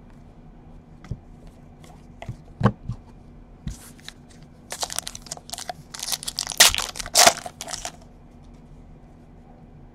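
Foil wrapper of a 2017 Panini Unparalleled Football card pack being torn open and crinkled: a dense run of crackling rustles from about five seconds in, lasting some three seconds. Before it come a few light clicks of cards being handled.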